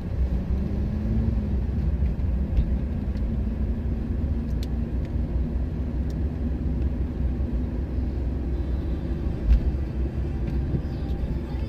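Steady low rumble of a car's engine and the road, heard inside the cabin while driving, with a faint steady hum and one brief bump near the end.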